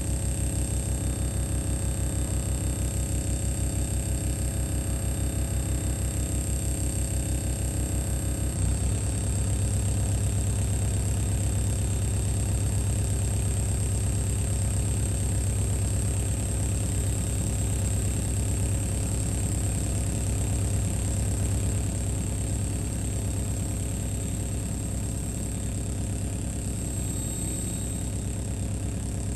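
Live electronic noise drone: a dense, steady low hum layered with sustained tones, including a high whine. The texture changes abruptly about eight seconds in.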